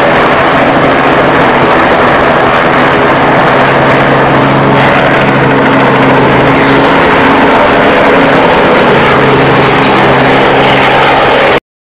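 Robinson R22 helicopter running close by, a loud, steady rotor and engine noise with a low hum, as it lifts off and pitches up.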